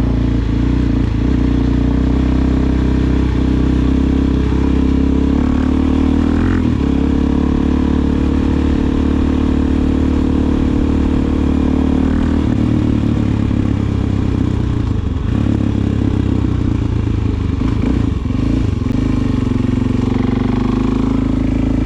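Suzuki DR-Z400SM's single-cylinder four-stroke engine running through a Delkevic aftermarket exhaust while the bike is ridden. The note is steady, changing pitch about six seconds in and again about twelve seconds in.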